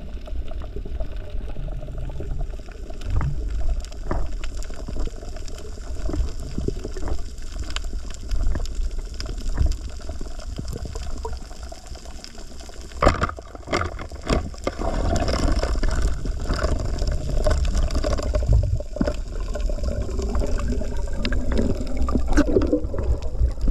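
Muffled underwater water noise picked up by a diving camera's microphone: a continuous low rush and bubbling, with scattered knocks and clicks from gear being handled, the loudest a little past halfway.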